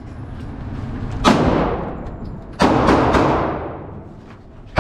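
Gunshots at a shooting range: two sharp reports about a second and a half apart, each trailing off in a long echo, with a third right at the end.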